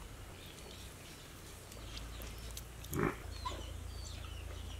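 A single short animal grunt about three seconds in, over faint bird chirps and a low steady hum.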